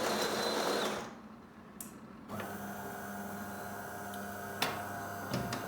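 De'Longhi ECAM 23.420.SW bean-to-cup coffee machine. Its burr grinder finishes grinding beans and stops about a second in. After a short pause and a click, a steady motor hum starts and runs, with a few clicks near the end. This is the brewing unit moving into place and, in the owner's guess, pressing the fresh grounds before brewing.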